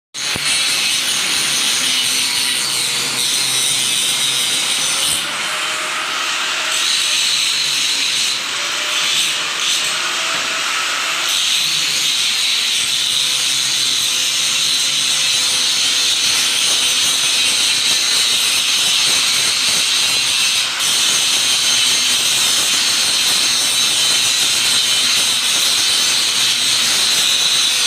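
Angle grinder grinding steel: a steady harsh hiss, with the motor's pitch wavering as it is pressed into the metal.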